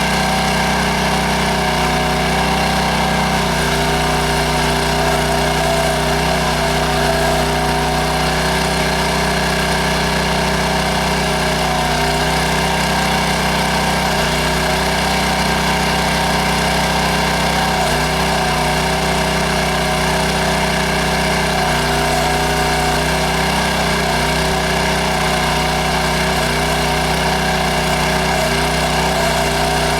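Towable backhoe's small gas engine running steadily, its note dipping and shifting every few seconds as the load changes while digging.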